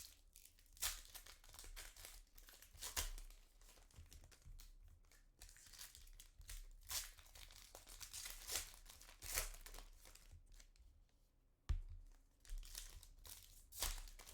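Foil trading-card pack wrappers crinkling and tearing as packs are opened and cards handled, in short irregular rustles and crackles, with a sharper snap about twelve seconds in.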